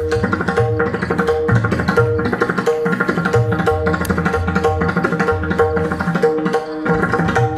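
Pakhawaj played in a fast, dense run of strokes, over a held melodic accompaniment.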